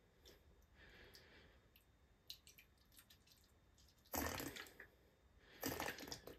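Rinse aid being poured from an upturned bottle into a dishwasher's plastic rinse aid dispenser: a faint trickle of liquid with a few small ticks, then two louder bursts of pouring about four and five and a half seconds in.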